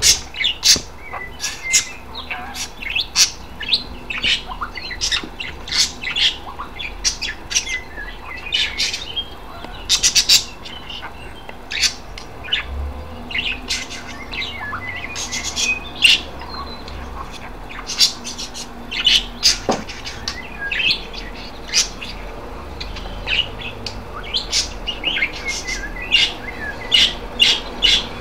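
Pet budgerigars calling: a busy, irregular run of short, sharp, high-pitched chirps, a few a second.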